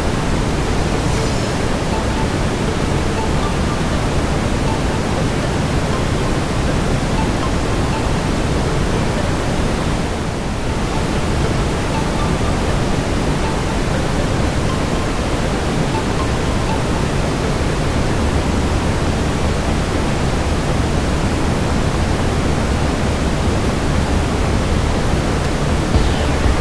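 Steady brown noise, a deep even rushing hiss, with faint scattered crackles of a burning fireplace; the noise dips briefly about ten seconds in.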